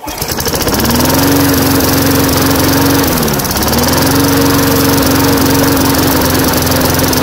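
3.5-horsepower lawn mower engine running on hydrogen-oxygen gas from an electrolysis unit. It picks up speed in the first second, sags briefly about three seconds in, then recovers and runs steadily.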